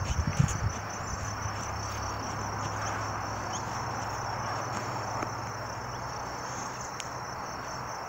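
A steady high-pitched insect trill, pulsing evenly, over a constant background hiss, with a few low thumps in the first second.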